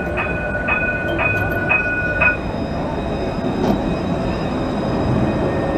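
Alstom Citadis low-floor tram rolling past on a curve, its wheels rumbling on the rails. For the first two seconds or so the wheels squeal with two high steady tones, crossed by a click about twice a second, and a fainter high squeal comes in later.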